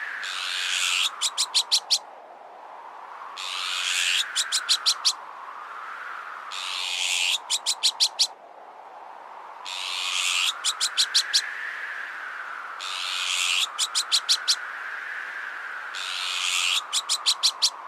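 Azure-winged magpie alarm calls, each a harsh rasp followed by a quick run of about six sharp notes, repeating about every three seconds. Under them, a strong wind whistles, rising and falling in gusts.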